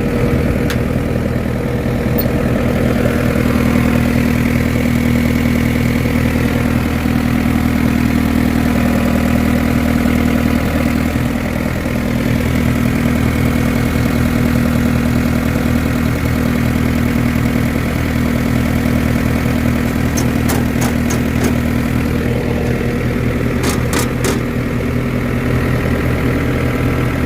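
John Deere 324 skid steer's diesel engine running at a steady speed, with a few sharp clicks about three-quarters of the way through.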